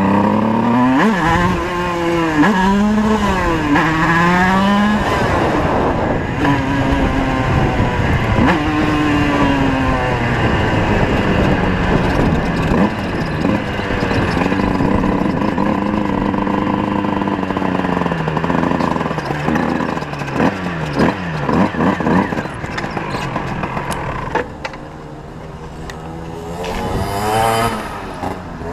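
Tuned 50cc two-stroke moped engines revving up and down, their pitch rising and falling again and again, at times more than one engine at once. The sound drops lower about three-quarters of the way through, then one engine revs up once more near the end.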